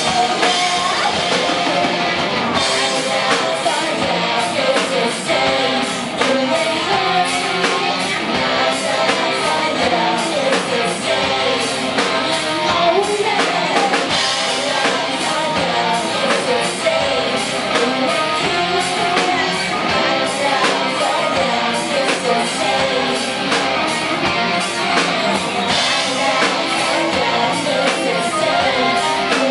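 Live rock band music with a singing voice over electric guitar and drum kit.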